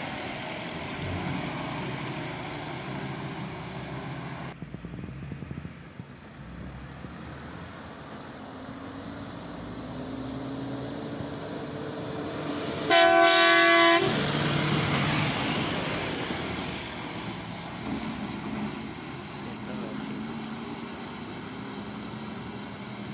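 Fire engines driving past with their engines running; a little past halfway, one sounds a single loud blast of its air horn lasting about a second, the loudest sound here, and the engine noise swells as it passes.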